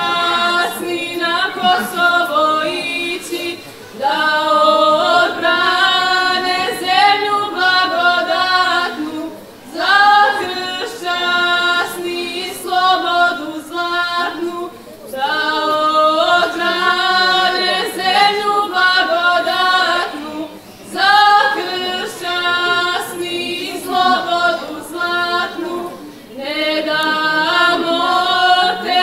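Two women singing a Serbian folk song a cappella, their voices together in long held phrases of about five seconds with short breaks between.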